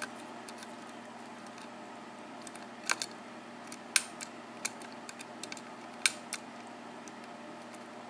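Lock pick working the pin stack of a 5-pin Manko mortice lock cylinder: scattered small, sharp metallic clicks and ticks, several close pairs, over a steady low hum.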